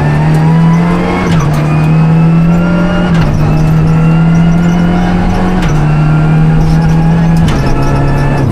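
Renault Clio Rally5's turbocharged four-cylinder engine heard from inside the car, pulling hard at high revs on a rally stage. Its pitch steps down about four times, with a few sharp knocks along the way.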